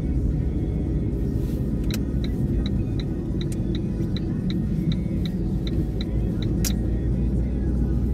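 Low, steady rumble of a car driving slowly on a city street, heard from inside. From about two seconds in, a run of short high ticks, about three a second, goes on for roughly five seconds.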